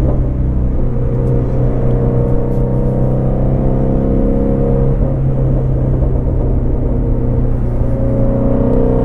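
2019 Shelby GT350R's 5.2-litre flat-plane-crank V8 running at steady revs under way, a constant engine and exhaust drone.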